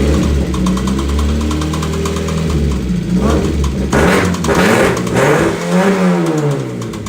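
Car engine revved up and down with a rapid, even knocking over it, the rod-knock sound of a first-start prank.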